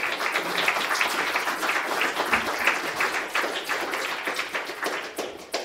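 Audience applauding: many hands clapping at once, tailing off near the end.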